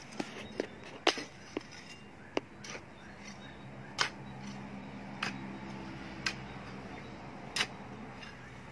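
Garden hoe chopping into and turning over a pile of soil mix on a plastic sack: irregular sharp chops and scrapes, about one a second, the loudest about a second in and near the middle.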